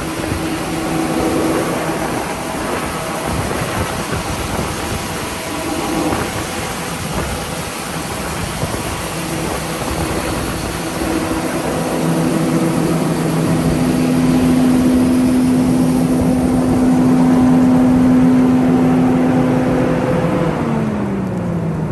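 Combine harvester running at close range during the unloading of corn into a grain cart, a steady machine hum with a strong engine tone that grows louder about halfway through and drops in pitch near the end.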